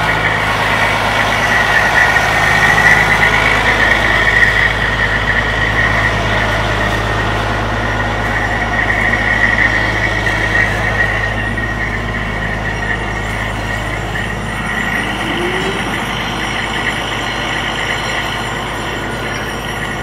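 Fire truck's diesel engine idling steadily, a constant low hum with a steady higher drone over it, easing slightly in the second half.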